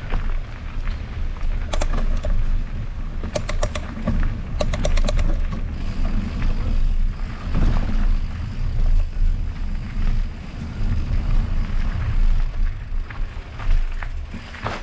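Mountain bike rolling along a dirt trail: a heavy low rumble with a few short bursts of rapid clicking in the first half.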